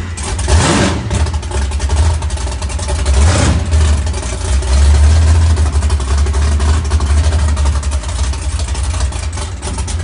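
Freshly rebuilt Chevy Nova drag car's race engine on its first start, running loud with a couple of quick revs in the first few seconds, then shut off suddenly at the end.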